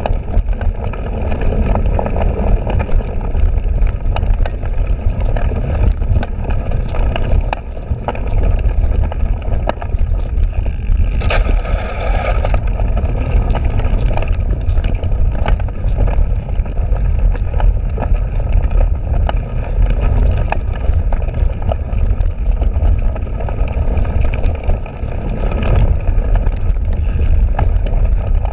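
A cyclocross bike ridden hard over bumpy grass and leaves: a steady low rumble of tyres and wind buffeting on the bike-mounted microphone, with frequent clicks and rattles from the bike as it jolts over the ground.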